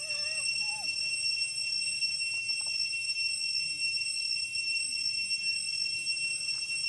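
A steady high-pitched whine made of several even tones, unchanging throughout, with a few faint short squeaky pitch glides in the first second.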